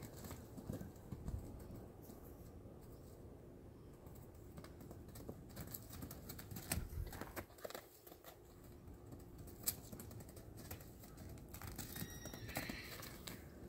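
Irregular soft thuds and taps of a young foal's hooves on grass and dirt as it gallops and bucks, with a few louder thumps.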